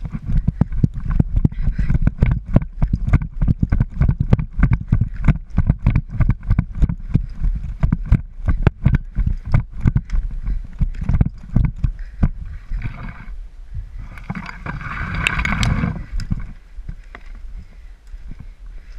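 Running footsteps thudding on dry leaf litter and pine needles, a quick even run of footfalls with the carried gear jostling. Around three-quarters of the way in comes a longer rustling swish.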